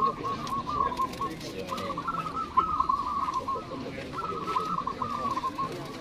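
Several caged zebra doves (perkutut) cooing: phrases of quick, repeated bubbling notes that overlap one another, broken by short pauses.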